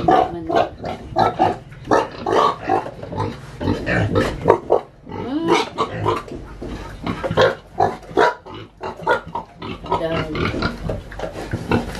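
Domestic pigs grunting, many short, irregular grunts in quick succession.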